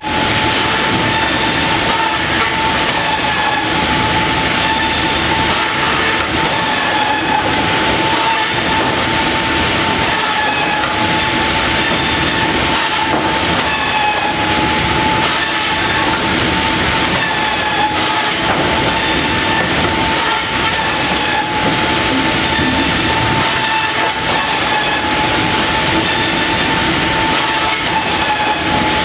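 Saw-sharpening grinder running on a shingle head saw, a steady high whine under repeated rasping strokes as the teeth are ground.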